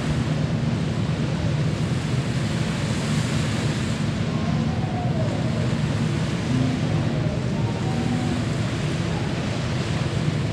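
Steady wind buffeting the microphone over a broad rush of sea noise.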